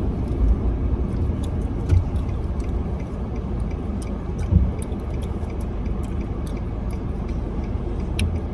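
Steady low rumble of a car's road and engine noise heard inside the cabin while driving, with scattered small clicks and a soft thump about two seconds in and another about four and a half seconds in.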